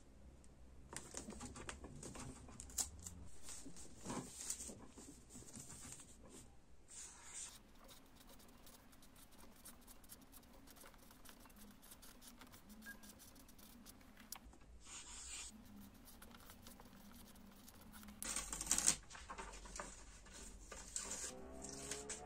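Paper handling close up: pages of a thick planner rustling and being turned, and a felt-tip marker writing on paper, in many small irregular rustles and scrapes. A louder rustle of paper comes about three-quarters of the way through.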